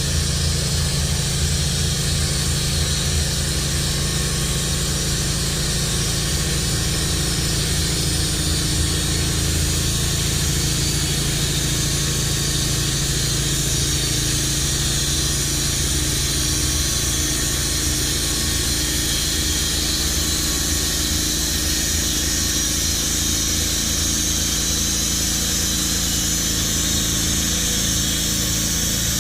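Wood-Mizer LT15 band sawmill running steadily, its engine and band blade sawing through a red pine log.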